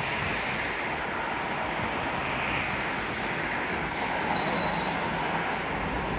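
Steady running noise of a moving vehicle, an even roar with a brief high squeal about four seconds in.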